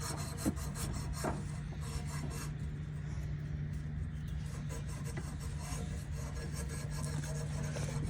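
Rapid rasping strokes, like a file or abrasive scraping on metal, over a steady low hum.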